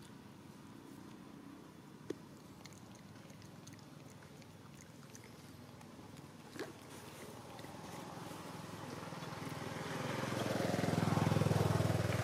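A motorbike engine approaching, growing steadily louder through the second half and loudest near the end. Two short sharp ticks come earlier.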